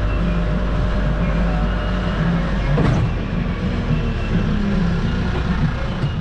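A tour trolley train's engine running steadily as it rides along, with road noise and one brief sharp knock about three seconds in.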